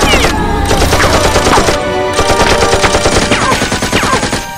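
Rapid automatic gunfire sound effects, a fast stream of shots with several falling whistles mixed in. The firing stops abruptly just before the end.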